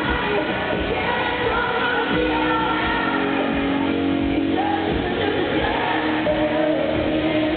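Live country-pop song: a female lead singer holding long, wavering notes over a full band, in an arena's reverberant sound.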